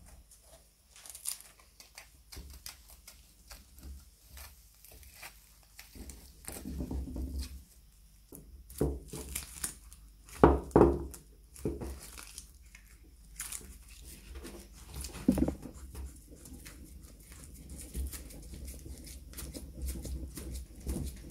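Irregular workbench handling noise: rustling, scraping and light clicks of parts and materials being handled. A sharper knock comes about ten seconds in.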